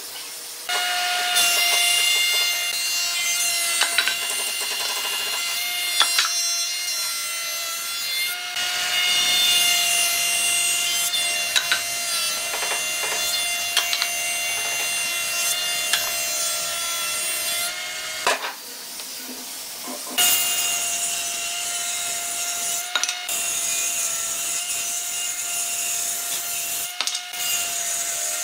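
Combination woodworking machine running: its planer cutter head shaves rough boards as they feed through. A steady motor whine sits under the rasping of cutting wood. The sound breaks off and starts again several times.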